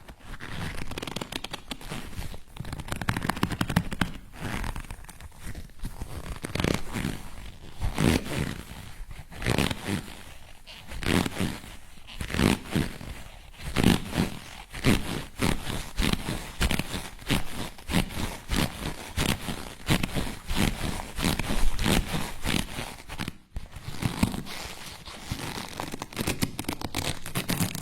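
Leather being stretched and twisted, creaking and crackling in irregular swells every second or two.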